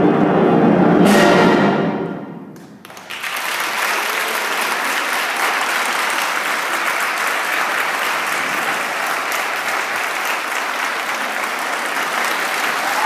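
A concert band of brass, woodwind and percussion holds its final chord, with a cymbal crash about a second in, and the sound dies away over the next couple of seconds. Then a large audience breaks into applause that goes on steadily.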